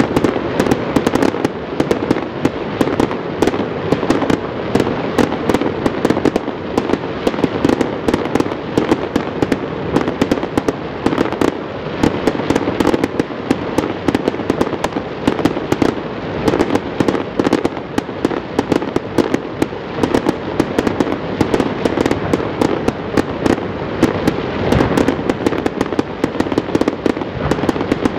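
Fireworks going off in a dense, unbroken stream of rapid pops and crackles.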